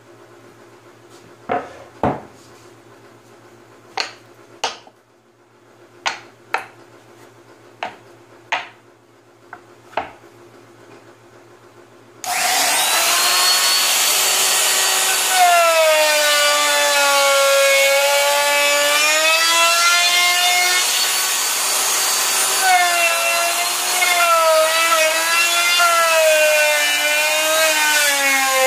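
About ten sharp knocks of plywood pieces being handled and set down. About twelve seconds in, a handheld router starts up abruptly and runs loud, its whine dipping and wavering in pitch as it cuts a rounded edge around the holes in a plywood shelf brace.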